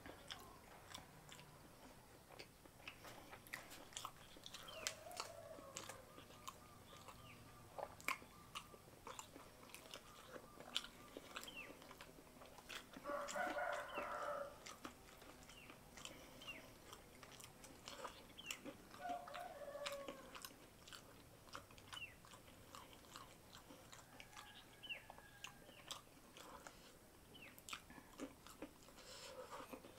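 Close-miked chewing and small mouth clicks of someone eating jengkol stew by hand, with fingers picking at a banana leaf. A chicken calls in the background about halfway through and again a few seconds later.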